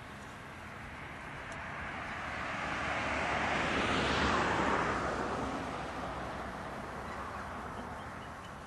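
Double-headed BB18¼ class steam locomotives getting under way: a rushing of steam and exhaust that swells to a peak about four seconds in, then fades.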